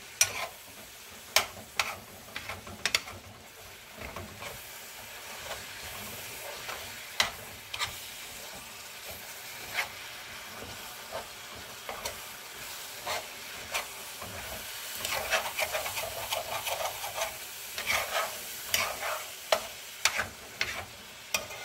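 Ground beef with onions and green peppers sizzling as it browns in a heavy cast-iron skillet, while a utensil stirs and scrapes through it and knocks on the pan now and then. The scraping and knocking get busier after about fifteen seconds.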